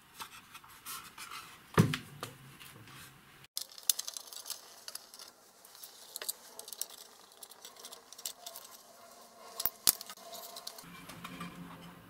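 Hands handling an opened aluminium instrument chassis and its circuit boards: scattered clicks, scrapes and light knocks, with a sharp click about two seconds in and two more close together near the end.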